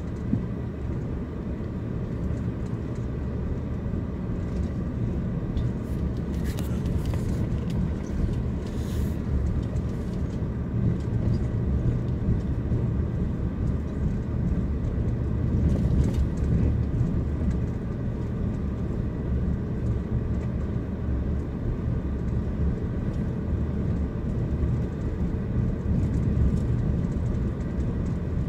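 Steady low rumble of a car driving slowly, its road and engine noise heard from inside the cabin.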